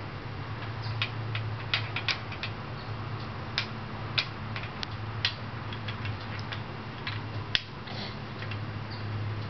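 Wooden beads of an IKEA wire bead-maze toy clicking against each other and the wires as a baby slides them along. The clicks are light and irregular, a dozen or so, over a steady low hum.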